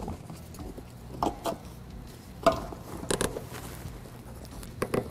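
Gloved hands working wiring and a truck's vinyl floor covering: a handful of short, irregular rustles, scrapes and light clicks.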